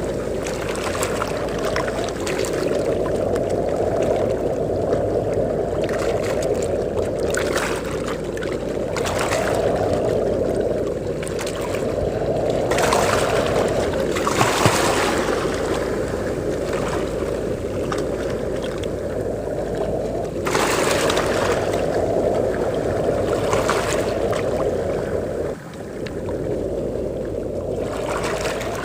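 Wind and ocean surf at the shore: a steady low rush of wind with waves breaking and washing in every few seconds, each wash adding a brighter hiss.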